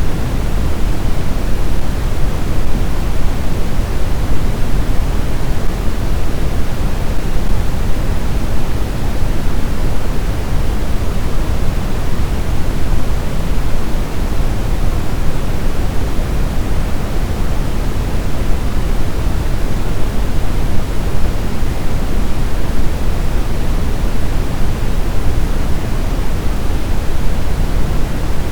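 Steady, loud synthetic noise, heavier in the low end like pink or brown noise, played continuously as a sleep aid for babies.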